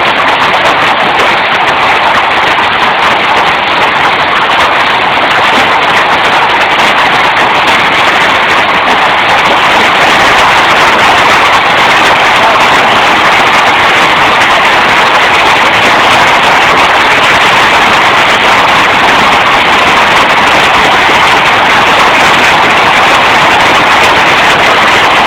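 Heavy hail coming down hard, a loud, dense, steady clatter of countless stones that gets a little heavier about ten seconds in. It is heard through a mobile phone's microphone.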